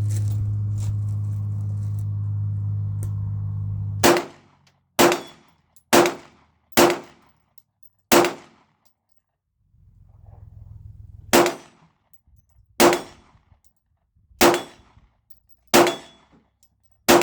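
A string of ten handgun shots fired at an uneven pace, each a sharp crack with a brief ring. They start about four seconds in, after a steady low hum that stops with the first shot.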